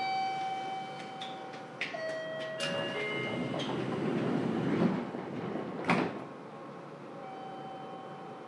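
Passenger sliding doors of a Fukuoka City Subway 2000 series car working at a station stop: steady chime tones that step down in pitch, a few sharp clicks, a rush of sliding noise, then a heavy thump about six seconds in as the doors reach the end of their travel.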